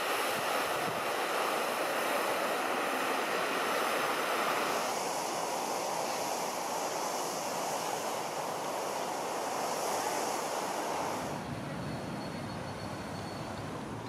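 Spray from a fountain jet falling onto a lake, a steady rushing splash. About five seconds in it turns to a thinner, higher hiss, which drops away about eleven seconds in.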